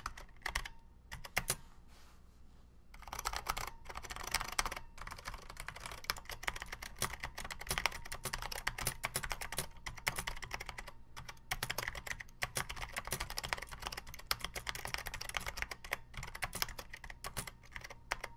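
Typing on an Apple Extended Keyboard II with tactile Mitsumi Alps-style switches and PBT keycaps: a dense, rapid run of keystroke clicks, with a short pause about two seconds in.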